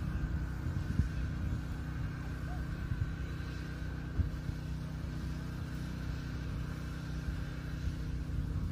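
A steady engine hum, like a motor running at idle, under the low buffeting rumble of wind on the microphone.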